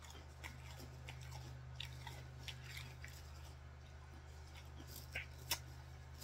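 A person chewing close to the microphone: soft wet mouth clicks and small crackles, with two sharper clicks about five seconds in, over a steady low hum.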